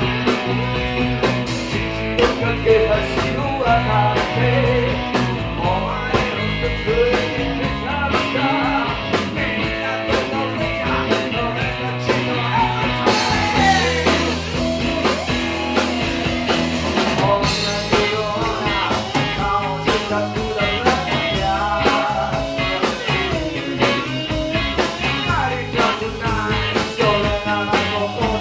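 Rock song played by a band, with guitar over a steady beat; the arrangement changes briefly about halfway through.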